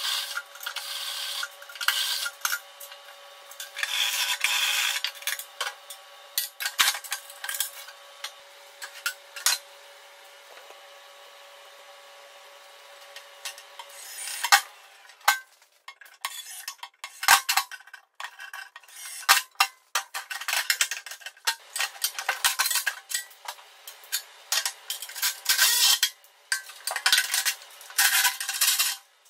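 A cordless drill with a step bit cutting through a steel diamond-plate truck bed floor, with a steady whine under repeated bursts of grinding through the first half. From about halfway on come sharp metallic clinks, clicks and clatter of bolts and tools as the hardware is fitted.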